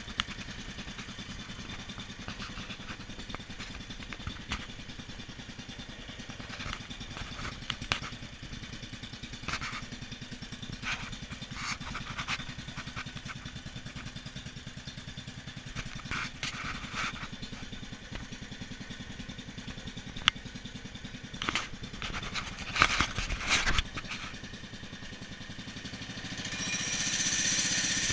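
Small engine of a homemade 2x2 mini bike running steadily, with its front-wheel chain drive turning and giving off irregular metallic rattles and clicks. Near the end the sound grows louder and hissier.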